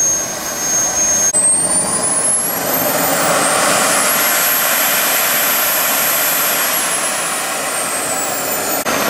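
Radio-controlled model jet's turbine engine whining as it spools up: the whine rises steeply over about three seconds, holds at a high pitch, then winds back down near the end.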